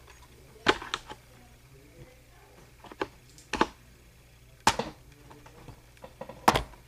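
A handful of sharp clicks and knocks at irregular intervals, the loudest one near the end, over a faint steady hum.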